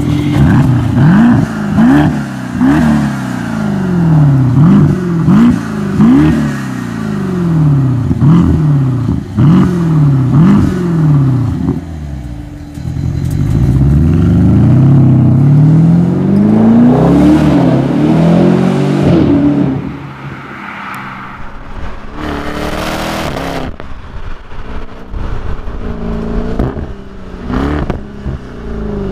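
Alpina B5 BiTurbo twin-turbo V8 through a mariani aftermarket sports exhaust, blipped in a quick series of short revs at standstill, then taken through one longer rev up and back down. About twenty seconds in it changes to the quieter, steadier sound of the car driving, with one brief loud rushing burst a few seconds later.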